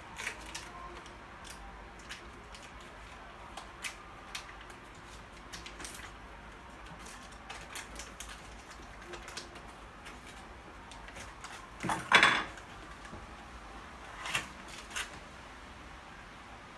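Foil butter wrapper rustling and crinkling as it is opened, with scattered light clicks and clinks of kitchen utensils. One louder clatter comes about two-thirds of the way through.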